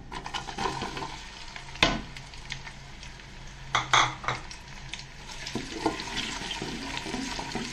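Chopped red onions dropped into hot oil in an aluminium pot and stirred with a wooden spoon, sizzling more steadily in the second half. Two sharp knocks against the pot, about two and four seconds in.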